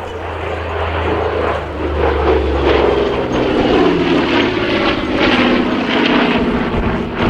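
Douglas A-26C Invader's twin Pratt & Whitney R-2800 radial piston engines running loud as it flies past, the engine note sliding slowly down in pitch.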